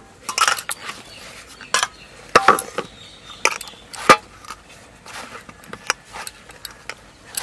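Semolina-and-flour dough kneaded by hand in a steel plate: irregular short slaps and knocks of dough and hands against the metal, about one a second.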